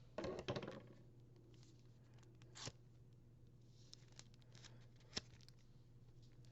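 Small objects and papers being handled on a desk: a short clatter of knocks just after the start, then single sharp clicks about two and a half and five seconds in, with faint rustling between, over a low steady hum.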